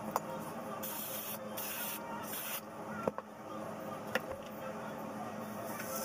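Three short bursts of aerosol hiss as thermal styling spray is sprayed onto hair, with a few light clicks.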